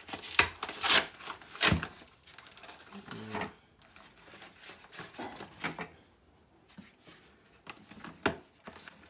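Brown kraft-paper parcel wrapping being torn open and crinkled by hand, in quick rustling tears that are loudest and densest in the first two seconds, then sparser rustles and light taps as the box inside is handled.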